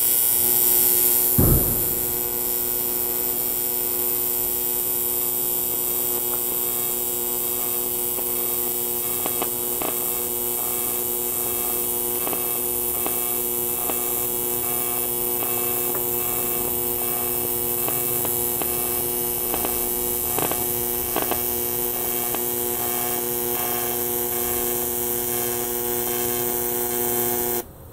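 AC TIG welding arc from a Sanjoe TIG200P AC/DC welder on 2 mm aluminium at 100 A, with 120 Hz AC frequency and 25% electrode-positive (cleaning) balance: a steady buzz with a hiss. It strikes suddenly at the start, slightly louder for the first couple of seconds, has faint clicks here and there, and cuts off suddenly near the end.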